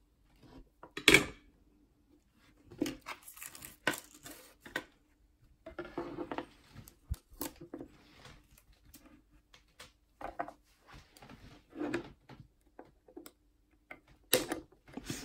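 Scattered clicks, taps and rustles of small tools and parts being handled while soldering guitar pots, with the loudest knock about a second in.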